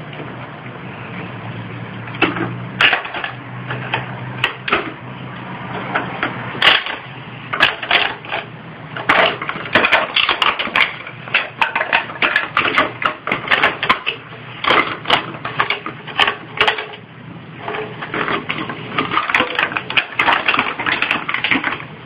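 Empty plastic drink bottles threaded on a rod clattering and knocking as a bull terrier pushes at them. It is an irregular run of hollow plastic clicks that starts about two seconds in and comes thicker from about nine seconds on.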